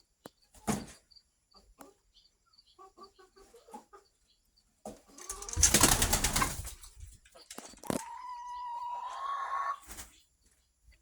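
Chickens: a run of soft, short clucks, then a loud burst of wing flapping about five seconds in, then one long drawn-out call that rises slightly at its end.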